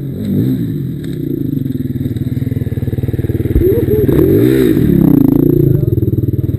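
Several off-road dirt bike engines running: one idles steadily close by, and from about three and a half seconds in other bikes rev up and down as they pass close, which makes the sound louder.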